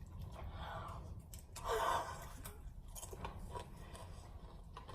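Faint clicks and rustling, with one short vocal sound from a person about two seconds in.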